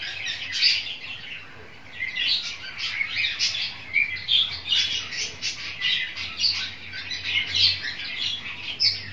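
A flock of caged pet birds chirping and squawking together in a continuous, dense chatter of overlapping high calls.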